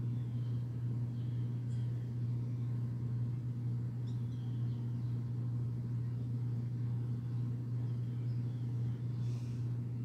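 A steady low hum that does not change, with faint, short, high bird calls a few times over it.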